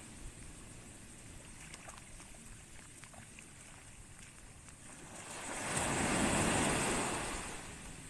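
Small surf breaking on a sandy beach: a low wash of water, then a wave breaks and runs up the shore, swelling and fading between about five and seven and a half seconds in.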